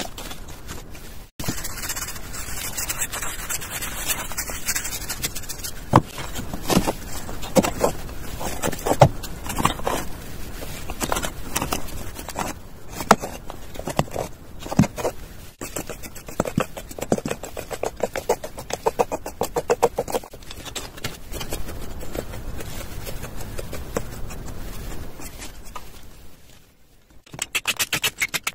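Gloved hands pressing and smoothing wet cement mortar on a sculpture, with irregular scraping, rubbing and soft knocks.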